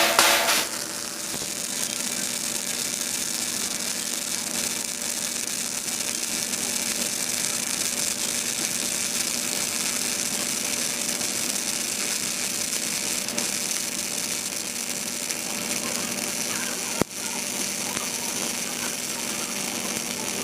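CO2 semi-automatic (MIG) welding arc crackling and hissing steadily over a steady hum. A few loud knocks come right at the start, and the arc cuts out and restarts briefly near the end.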